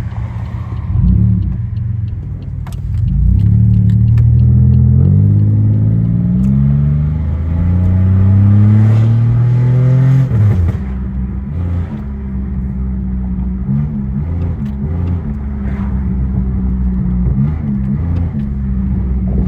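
Pontiac Grand Prix GT's 3.8-litre V6 through a catless exhaust, accelerating: the revs climb, dip at a gear change, climb again, then fall away sharply about ten seconds in as the throttle closes, settling into a steady low cruising drone.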